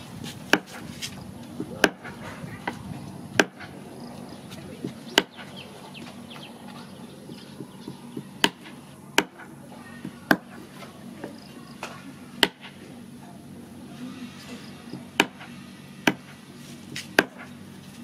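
Cleaver chopping through chicken feet on a wooden cutting board: single sharp chops at an uneven pace, one every second or two.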